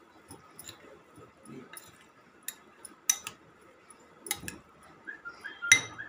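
Metal spoon stirring in a glass bowl, clinking against the glass now and then, with the loudest clink near the end.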